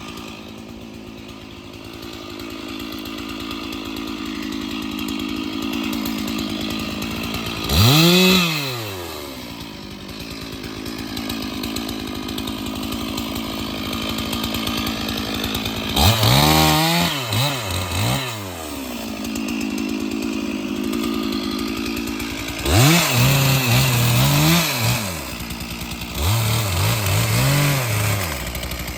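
Stihl chainsaw idling, its engine revved up in short bursts that rise and fall in pitch: once about eight seconds in, a few times around the middle, and in a quick series near the end.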